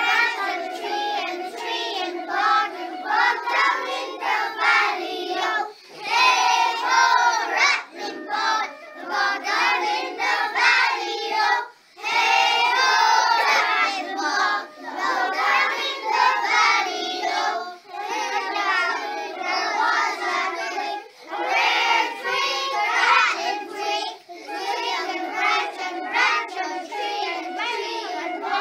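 A group of primary-school children singing together without other voices speaking, in sung phrases with short breaks for breath between lines.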